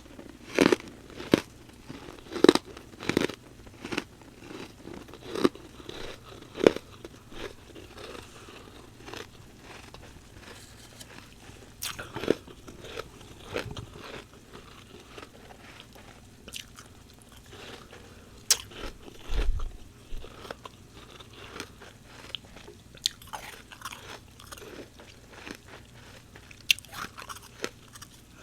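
Close-miked chewing of fresh humidifier frost: a quick run of loud, sharp crunches over the first seven seconds or so, then sparser, quieter crunching chews. A single dull low thump comes about two-thirds of the way through.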